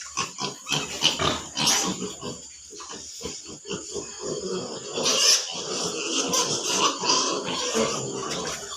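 Several pigs making many short, irregular grunts and calls, with a louder, noisier stretch about five seconds in.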